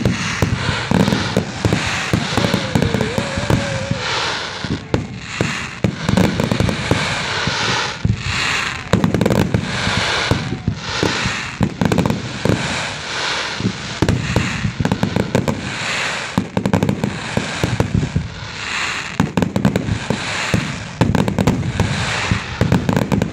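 Aerial fireworks shells bursting many times in quick succession, bangs overlapping with dense crackling, without a break.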